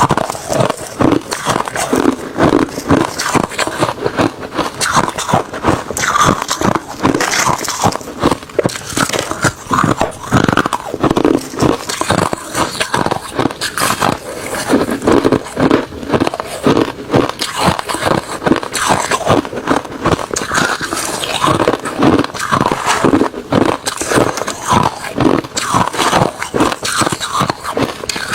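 Refrozen crushed ice and shaved ice being bitten and chewed, a dense, unbroken run of crunches.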